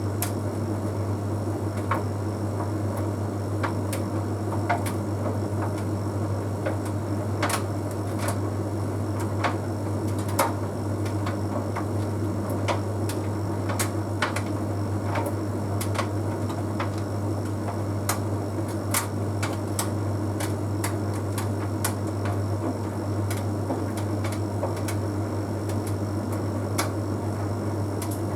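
Bosch Series 6 heat pump tumble dryer running mid-cycle: a steady low hum from the heat pump and drum motor, with irregular light clicks of the half load of synthetic clothes tumbling in the drum.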